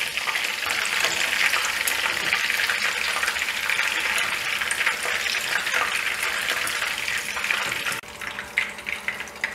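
Flour-coated chicken pieces deep-frying in hot oil, a steady sizzle as a fork moves them around the pan. About eight seconds in the sizzle drops off sharply as the batch is lifted out of the oil on a wire spider strainer, leaving a quieter hiss with a few light clicks.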